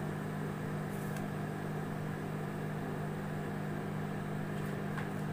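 Samsung microwave oven running: a steady low hum with the whir of its fan, and a few faint ticks.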